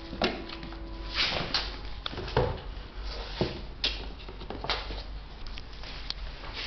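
Small cardboard box knocking and scraping on a tiled floor as a kitten tumbles about inside it and tips it over, in irregular bumps and short slides.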